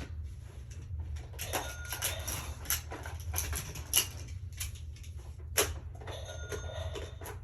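Toys being handled in play: irregular light clicks and knocks of small hard pieces, over a steady low hum.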